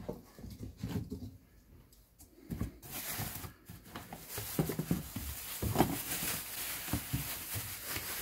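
Plastic packaging crinkling and rustling as hands dig through a cardboard box of bagged supplies, with soft knocks and bumps of the contents; the crinkling gets denser from about three seconds in.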